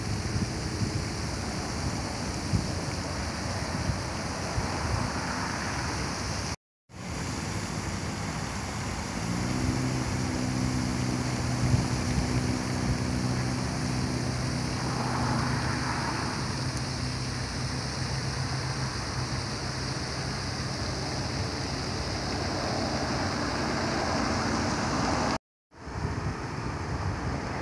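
Pond fountains spraying and splashing back onto the water, a steady hiss. A low engine-like hum rises over it for about ten seconds in the middle, and the sound cuts out briefly twice.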